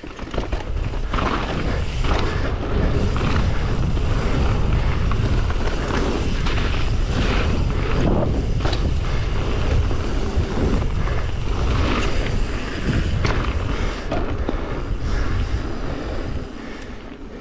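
Mountain bike descending a rocky dirt trail: tyres rolling over dirt and stones with frequent knocks and rattles from the bike over bumps, under heavy wind rumble on the camera microphone. It gets quieter near the end as the bike rolls onto a smoother gravel road.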